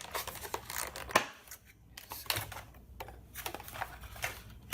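Handling noise from the wireless headset and its small parts: a run of small clicks and rustles, with one sharper click about a second in.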